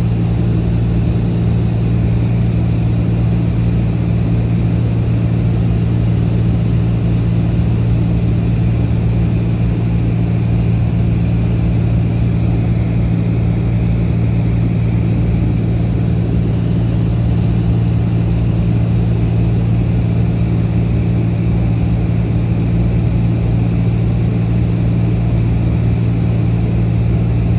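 Aircraft engine running steadily with a constant low drone, heard from inside the cabin.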